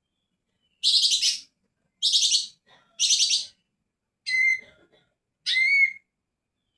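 A cucak ijo (green leafbird) singing. It gives three harsh, rasping notes about a second apart, then two clear whistled notes, the last one bending up and then down.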